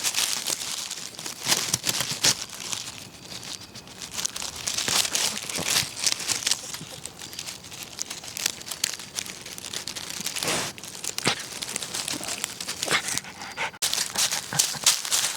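Close-up irregular rustling and crinkling with sharp clicks as a Pomeranian moves about and plays.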